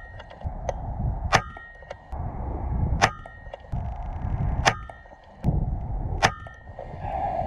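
Air rifle firing NSA slugs: four sharp shots, one about every second and a half, each followed by a brief metallic ring.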